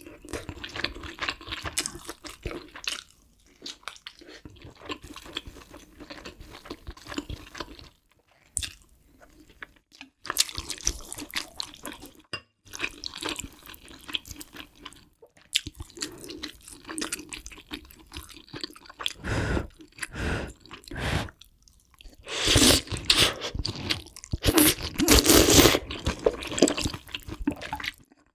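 Close-miked eating sounds: biting and chewing rolled omelette, then ramen noodles and kimchi stew, in a run of wet chewing bursts with short pauses. The loudest and longest bursts come about three-quarters of the way in.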